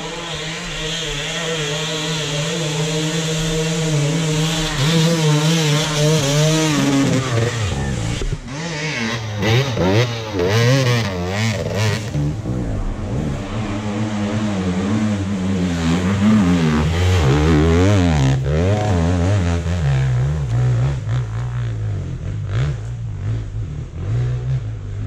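Hard enduro dirt bike engines running steadily, then revved hard and unevenly from about eight seconds in, the pitch rising and falling again and again as the throttle is worked on a steep climb, with a few sharp knocks along the way.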